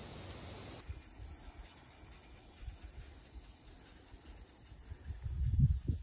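Faint, steady chirring of insects in the meadow grass over a low rumble. About five seconds in, wind starts buffeting the microphone in loud, irregular gusts.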